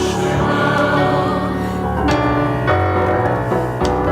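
Voices singing a Hebrew liturgical blessing with piano accompaniment. New chords come in about two seconds in and again near the end.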